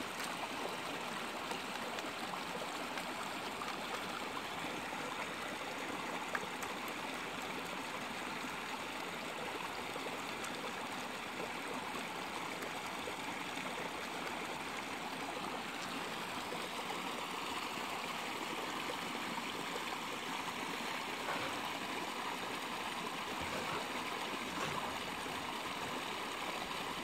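Shallow creek water flowing and trickling steadily.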